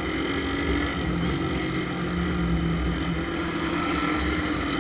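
Shineray motorcycle's engine running steadily under way, its exhaust made noisy by a hole drilled in the pipe.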